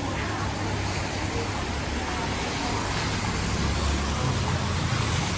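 Steady street noise: traffic rumbling under an even hiss, with voices in the background.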